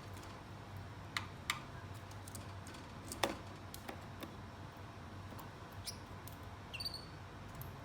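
Pet Gouldian finches in a cage: scattered light clicks and taps, the loudest about three seconds in, and one short high call near the end.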